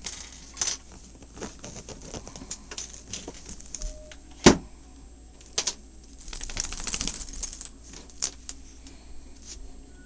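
A chihuahua's claws scratching and scrabbling on woven fabric as it rolls and plays, in many quick clicks and rustles, with one loud knock about four and a half seconds in and a fast burst of scratching shortly after.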